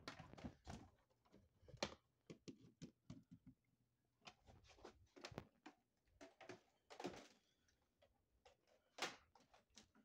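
Faint handling noise: scattered soft knocks and rustles from the camera and the power cord being moved about.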